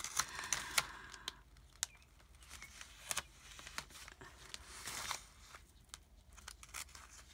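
Clear plastic page protector being handled and pressed flat by hand, with light crinkling and scattered sharp clicks as double-sided tape is worked along its edge.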